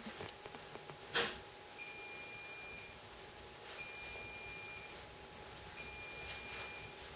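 Electronic beeper giving three steady high beeps, each about a second long and about two seconds apart. A short sharp knock comes about a second in, louder than the beeps.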